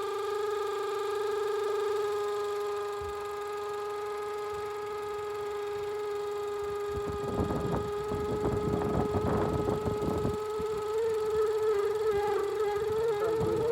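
Steady buzzing tone from a Range Rover's engine, the vacuum-leak-like noise that the mechanic traces to a swollen, wrong hose on the PCV valve vibrating inside. Rustling and knocks of handling come in about halfway, and the tone starts to waver near the end.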